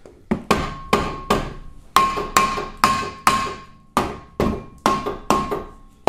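Rubber mallet striking a rust-seized front brake rotor on a 2013 Hyundai Sonata, about two blows a second. Each hit leaves a short metallic ring from the rotor.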